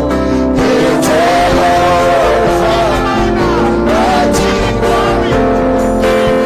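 Gospel music: a sung melody over sustained keyboard chords and a steady bass.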